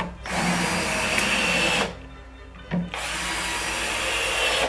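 Cordless drill/driver running in two bursts of about a second and a half each, with a steady whine, driving screws through plastic roller-bearing drawer glides into the wooden drawer. A brief knock comes just before the second burst.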